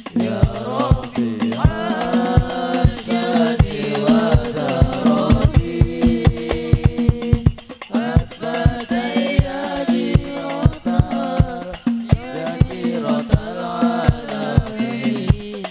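Live sholawat: a singer leads a devotional song over a hadrah ensemble of rebana frame drums beating a steady rhythm.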